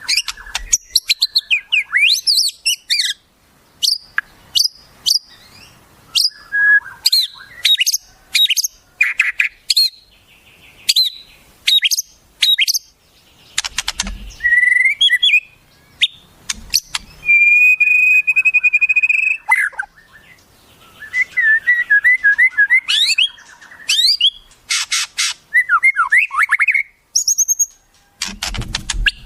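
Songbirds calling in a quick, varied string of sharp chirps and rising whistles, with one long held whistle about halfway through and runs of fast repeated notes after it: wild-bird song used as masteran for training a white-rumped shama.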